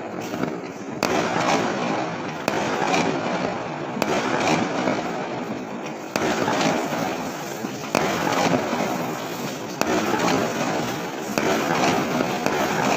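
Aerial fireworks going off: a sharp bang every one to two seconds over a continuous dense crackle.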